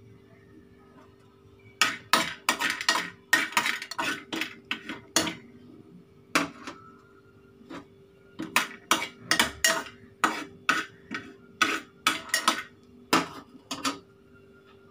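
A metal spoon clinking and scraping against a steel pot as it turns pieces of cinnamon bark dry-roasting in it: a long run of sharp, irregular clinks from about two seconds in until near the end, with a short pause midway.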